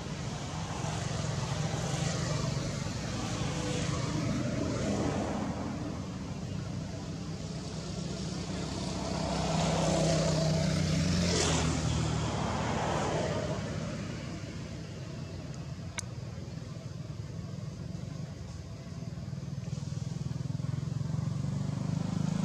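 Passing road traffic: motorbike and car engines humming, swelling and fading as vehicles go by, loudest about ten to twelve seconds in.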